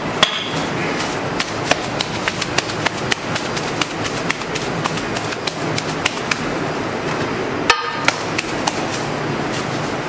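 A steady noisy roar of a busy street-food kitchen with irregular sharp clicks and clatter of utensils and food being worked. The sound cuts out briefly twice, just after the start and about three-quarters through.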